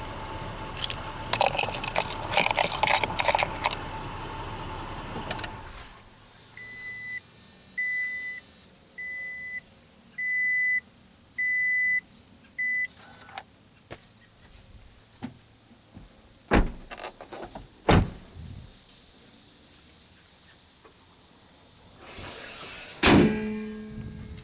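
Rattling and clattering of handling inside a Toyota Tacoma's cab, then the truck's warning chime beeping six times at an even pace, about a second apart. Two sharp clicks follow, and a loud thump with a short ringing tail near the end.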